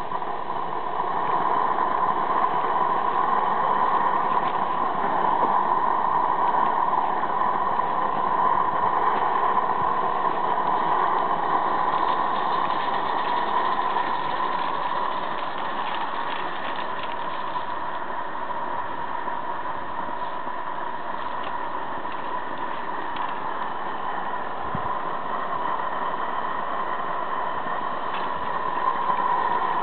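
Accucraft model of a Saxon IK narrow-gauge steam locomotive running along garden-railway track with its wagons: a steady hiss, louder in the first half, dipping past the middle and picking up again near the end.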